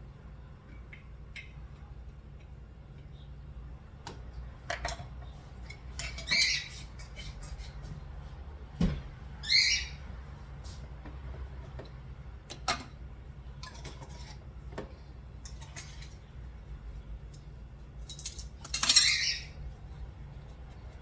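Scattered clinks and taps of measuring utensils against a bowl as cornmeal is measured into a seasoned flour mix, with three short high-pitched bursts standing out about six, nine and nineteen seconds in, the last the loudest.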